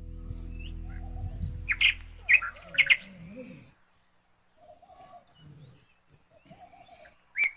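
A few sharp, high bird chirps over the fading tail of a held musical chord, then only faint, scattered small sounds.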